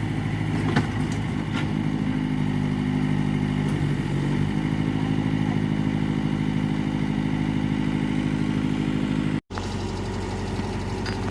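Mitsubishi backhoe's diesel engine running steadily, with a few light metallic clicks in the first two seconds. The engine note shifts about four and a half seconds in, and the sound cuts out for an instant about nine and a half seconds in.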